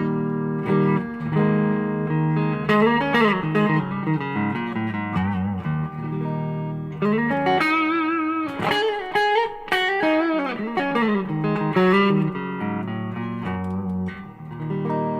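Electric guitar played through a Cornerstone Gladio SC overdrive pedal. Ringing chords give way to single-note lead lines with string bends and wide vibrato in the middle, then a held chord rings near the end.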